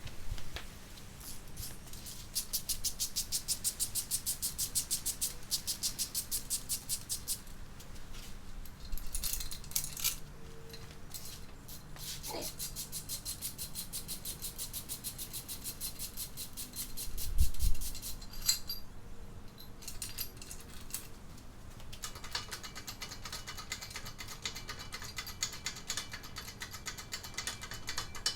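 Runs of fast, even metallic clicking from a hand tool's ratchet, each lasting a few seconds, with small knocks between them and one dull thump about two thirds of the way through.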